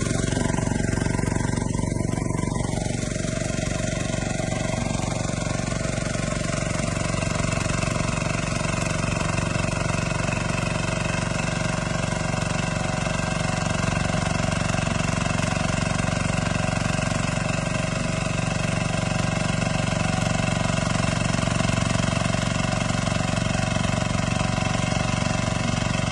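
Wenovus paddle-tine tiller's small engine running steadily.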